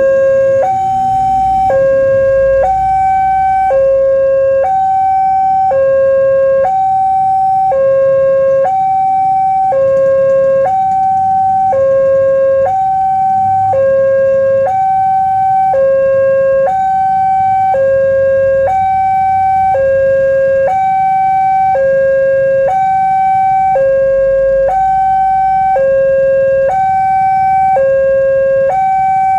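Railway level-crossing warning alarm sounding continuously: an electronic two-tone signal alternating evenly between a higher and a lower tone, about one second each, over a low rumble. It is the signal that a train is approaching and the barrier is down.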